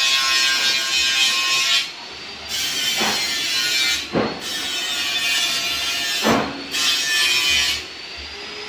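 TIG (argon) welding arc hissing, cutting out and starting again about four times, with a few sharp knocks.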